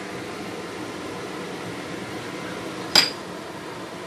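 Steady background hum, then about three seconds in a single sharp metallic clink against a large stainless-steel soup pot.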